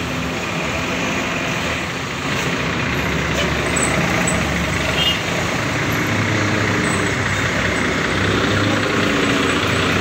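Diesel engine of a Hino RM280 Jetbus 3 tour bus running as the bus pulls away and drives past close by, a steady drone that grows a little louder about two seconds in.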